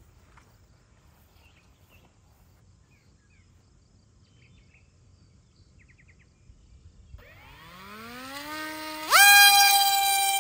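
Electric motor of a Nano Drak model aircraft spinning up: a faint whine rises steadily in pitch from about seven seconds in, then jumps abruptly to a loud, high, steady whine as it is throttled up, about two seconds later. Faint bird chirps are heard before the motor starts.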